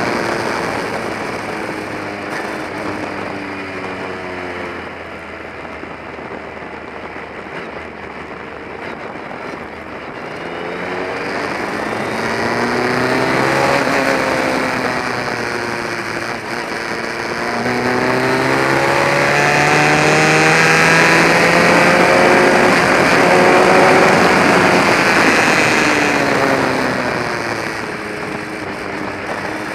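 Formula Ford race car's engine heard from the open cockpit, its revs climbing and dropping again several times through gear changes and corners, over a steady rushing noise. It is quieter in the first third and loudest in the second half.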